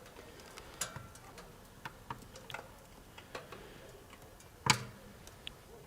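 Firewood crackling in a burning tent wood stove, which has its draft vent partly open: sparse, irregular sharp pops and ticks, the loudest near the end.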